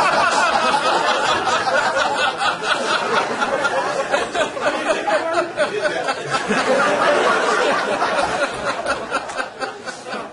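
An audience laughing together, many voices at once, louder than the lecture speech around it and dying down near the end.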